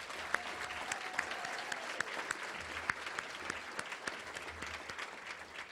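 Audience applauding, a dense patter of hand claps that thins out and fades toward the end.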